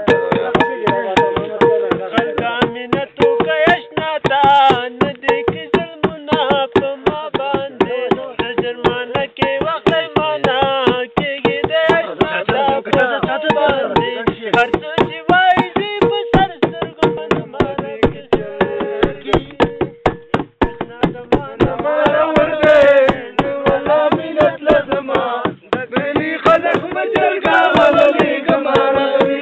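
Music: a song with a singing voice over a fast, steady drumbeat and a held drone note.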